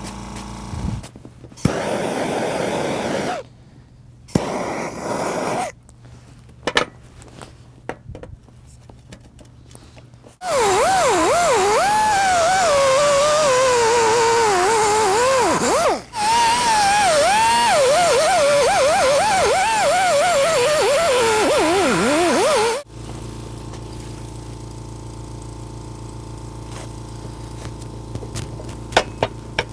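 Pneumatic die grinder with a carbide rotary file cutting the inside of a steel ring. It runs in a few short bursts, then in a long run of about twelve seconds whose whine wavers up and down in pitch as the file bites and eases off. After it stops, an air compressor runs on with a steady hum.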